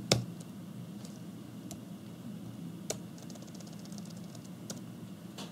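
Computer keyboard keys clicking in scattered strokes as a shell command is typed, the sharpest click right at the start and a quick run of lighter taps around the middle, over a steady low hum.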